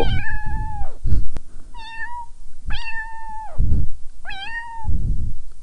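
Kitten mewing four times in quick succession: high, thin calls, each rising briefly and then holding a level pitch, the longest lasting nearly a second. A low rumble and a single click sit beneath them.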